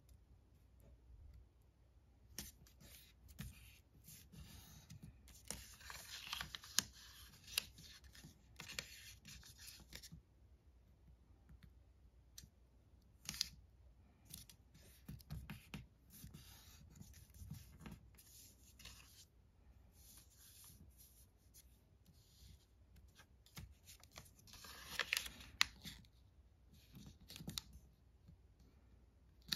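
Square origami paper being folded and creased by fingers: dry rustling and rubbing in bursts with short sharp crackles, louder about a quarter of the way in and again near the end.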